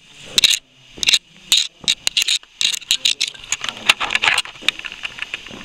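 Footsteps crunching over loose gravel and rubble: a quick, irregular run of sharp crunches and scrapes, several a second.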